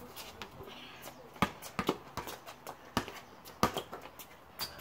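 A basketball bouncing on a concrete driveway: about six sharp, irregularly spaced thuds.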